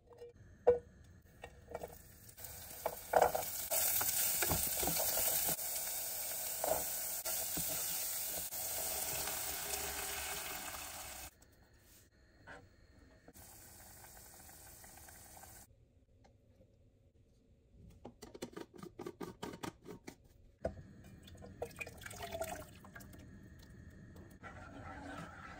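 Vegetables sizzling in hot oil in a saucepan for several seconds, then quieter cooking noises after a cut: a run of rapid short clicks and scrapes, and blended vegetable soup being poured into the pot near the end.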